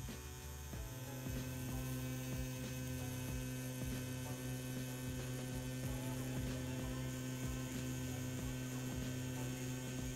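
CNC P6 rotary tattoo pen running at 9 volts on its shortest 3 mm stroke length: a steady motor hum, louder from about a second in, as the needle lines into silicone practice skin.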